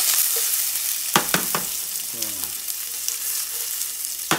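Shallots sizzling in a hot sauté pan, the sizzle loudest as the pan is tossed, then settling to a steady hiss. A few sharp knocks about a second in and again near the end as the pan is moved on the glass cooktop.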